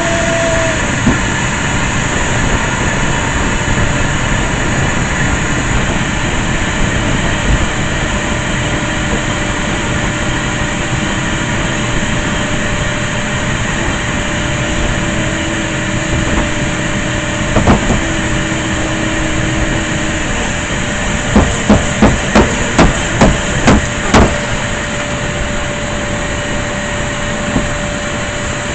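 Vacuum cleaner running steadily, with a quick run of about eight sharp knocks near the end.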